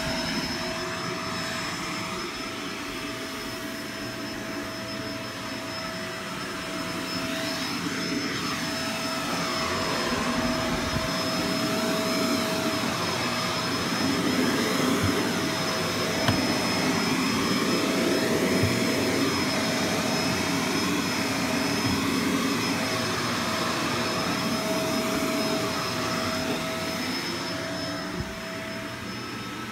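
Vacuum cleaner running on carpet: a continuous rush of air and motor with a steady high whine, its loudness swelling and easing slowly as it is worked back and forth.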